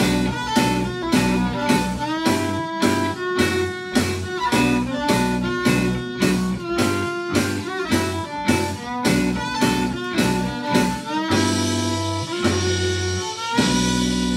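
Fiddle playing the melody of a jazzy blues tune over a guitar accompaniment with a steady beat of about two strokes a second. About eleven seconds in the beat stops and the tune closes on sustained chords, ending in a long held final chord.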